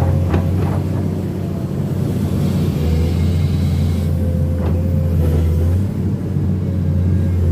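Komatsu PC210 excavator's diesel engine running steadily with a deep hum, heard from the cab, with a few short knocks about half a second in and again about two-thirds through.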